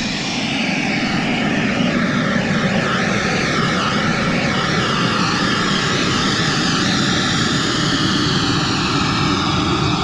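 Kingtech K45G4+ model jet turbine in an E-flite Viper running steadily at idle, a loud even whir with a wavering higher whine over it.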